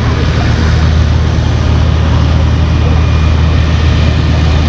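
A motor running steadily with a constant low hum and a broad hiss above it, not changing speed.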